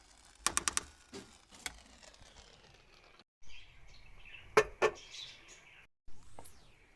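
Sharp clicks and knocks: four in quick succession about half a second in, two more soon after, and two again about four and a half seconds in, with high chirping in the background from about halfway.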